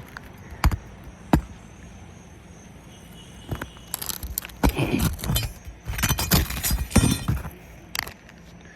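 Roofing nails being worked out of asphalt shingles with a metal pry bar: two sharp knocks about a second apart, then a few seconds of scraping, clinking and cracking, with one last knock near the end.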